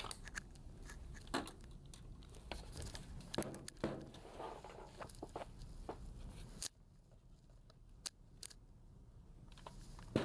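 Side cutters snipping the excess legs of newly soldered components on a TV power board: a few sharp clicks spread apart, with rustling handling noise between.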